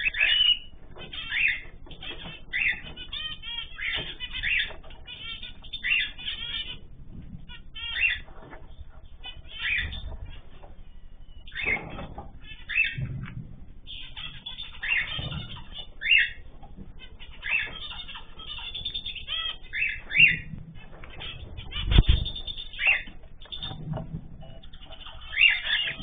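Cage birds in a mixed aviary calling over and over in short, loud chirps, about one a second. A few dull thumps come among them, the loudest about three-quarters of the way through.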